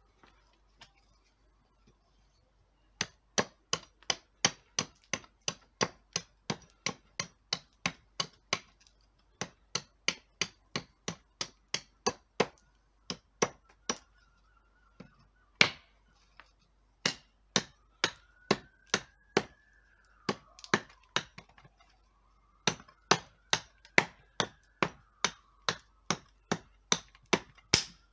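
Nessmuk-style knife chopping into a thin stick of wood against a wooden block: a long run of sharp chops, about two to three a second, with a couple of short pauses.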